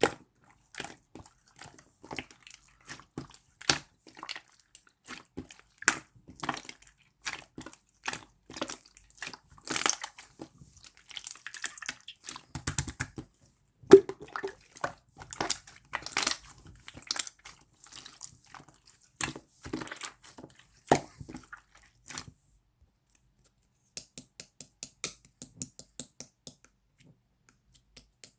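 Slime being squeezed and kneaded by hand, making quick, irregular sticky clicks and pops. It stops for about two seconds near the end, then picks up again more sparsely.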